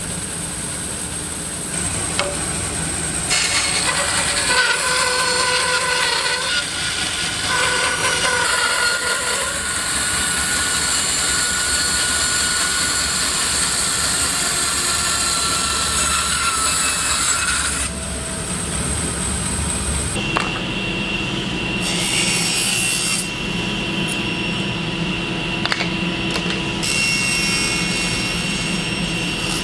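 Bandsaw running and cutting lengthwise into the end of a wooden board. About two-thirds of the way through it gives way to a different steady machine sound with a high whine, a table saw running.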